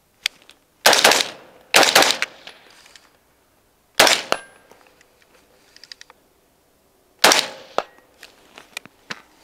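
Four rifle shots from an AR-15: two about a second apart early on, one at about four seconds and one near the end, each cracking sharply and then trailing off.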